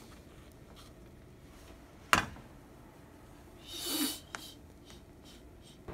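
A metal turner knocks once sharply against a nonstick frying pan while pancakes are flipped, with a lighter click just after four seconds. Just before that second click comes a short breathy exhale from the cook.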